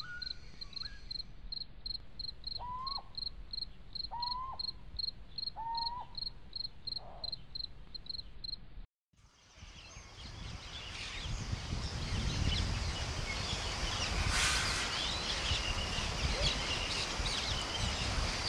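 Night ambience of crickets chirping in a steady pulse, about two or three chirps a second, with four short lower calls over it. It cuts off abruptly about nine seconds in and gives way to many birds calling at dawn, fading up louder.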